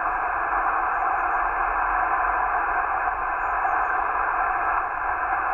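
Steady hiss of an amateur radio receiver on an empty channel, heard through the transceiver's speaker. No station is coming through, because the called station's signal is too weak to make it.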